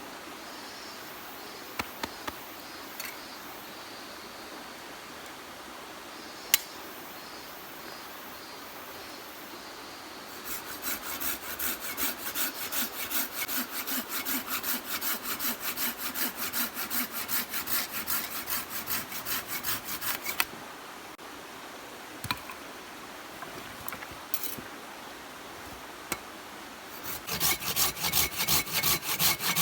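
Hand saw cutting wood in quick, even back-and-forth strokes, about two to three a second, for about ten seconds. The sawing stops, a few light knocks follow, and it starts again near the end. Before the sawing there are only a few isolated clicks over a faint background.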